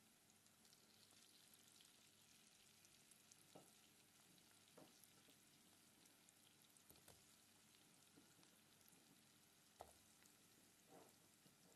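Faint sizzling and crackling of sliced onions and green chillies frying in oil in a pot, with a few light knocks and clicks scattered through.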